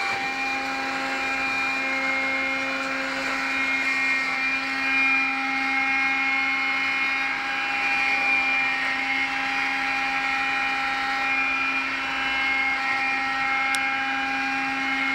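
iRobot Scooba floor-washing robot running, a steady motor whirr with several held tones.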